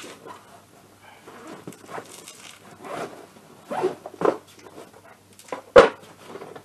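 Someone rummaging low down: a run of irregular rustles and scrapes, with one sharp knock near the end.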